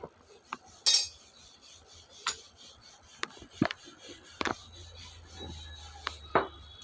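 Metal parts of a motorcycle wheel assembly knocking, clicking and scraping as the wheel is handled and fitted: scattered knocks, the loudest about a second in, with a low hum in the second half.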